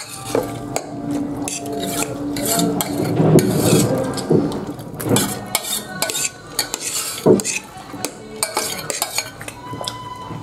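Stainless steel spoon scraping and clinking against the inside of a steel serving bowl as egg tarka is scooped out onto a plate, in repeated scrapes and taps with a sharper clink about seven seconds in.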